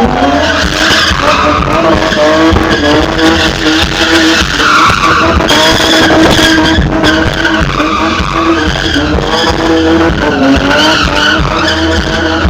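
A car drifting: its engine held at high revs with the tyres squealing. The engine pitch climbs right at the start, then stays high and nearly steady.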